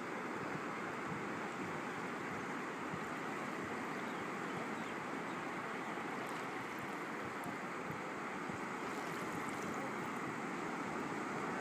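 Shallow water washing over a sandy shore, a steady rushing noise with no distinct waves breaking.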